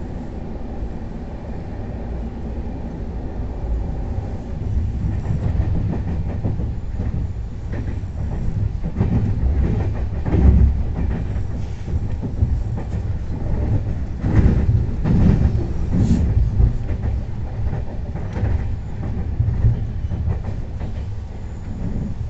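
Passenger coach of the Sampoorna Kranti Express running on the track, heard from inside: a steady low rumble of wheels on rails. Irregular bursts of wheel clatter over the track grow louder and busier from about a third of the way in.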